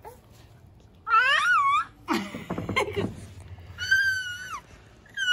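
Infant's high-pitched squealing vocalizations: a wavy squeal about a second in, a noisier vocal burst around two to three seconds, and a long held squeal near four seconds that drops at its end.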